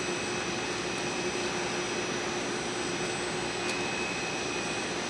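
Steady machinery running: an even rushing noise with several high, steady whines over it.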